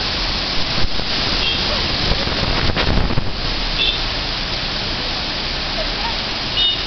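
Waterfall rushing in a steady, loud wash of noise, with a few short thumps about a second in and again around three seconds in.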